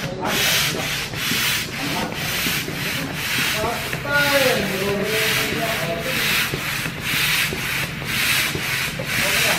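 Hand air pump being worked in quick strokes to inflate an Intex Explorer K2 inflatable kayak: rhythmic rushing air and rubbing, about two strokes a second. A short wavering tone comes in about halfway through.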